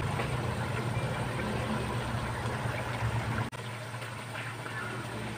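Shrimp-paste sauce bubbling in a wok, over a steady low hum. The sound drops suddenly about three and a half seconds in and goes on quieter.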